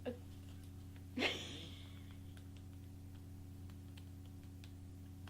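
A short breath or sniff close to the microphone, about a second in, over a steady low electrical hum, with faint light ticks afterwards.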